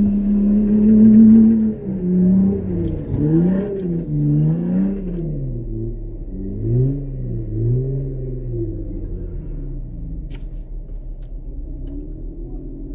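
A 4x4's engine revving hard while churning through a deep mud pit. The note is held high for a moment, then rises and falls over and over, about once a second, before easing off to a steadier low running sound.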